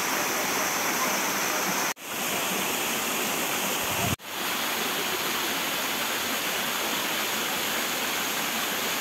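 Steady rush of flowing water from a stream and waterfall. It cuts out abruptly twice, about two and four seconds in, and fades back in each time.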